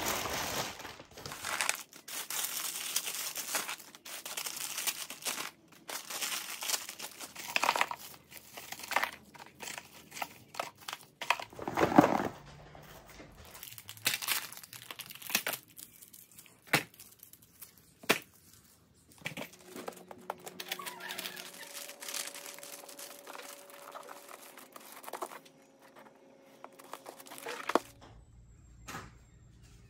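Plastic candy packets and wrappers crinkling and rustling in irregular bursts as candy is handled and dropped into paper gift bags.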